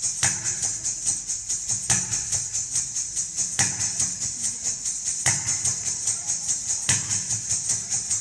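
Kathak footwork (tatkar) of bare feet stamping the floor in a fast, steady rhythm that imitates a train crossing a small bridge: a heavy stamp about every second and a half with quicker, lighter strikes between.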